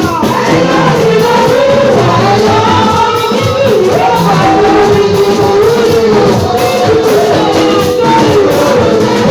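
Loud worship music: singing voices carrying a wavering melody over drums and other instruments.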